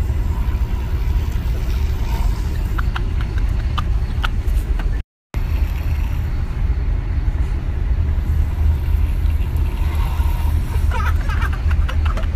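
Steady low rumble of a bus on the move, heard from inside the cabin, with a few faint clicks and rustles. The sound cuts out for a moment about five seconds in.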